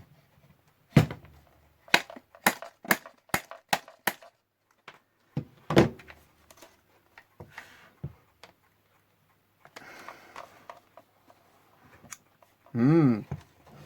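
Sharp clicks and knocks of a blade prying at a stuck part in a radio: a quick run of about seven clicks, a louder knock, then a few fainter taps and a stretch of faint scraping.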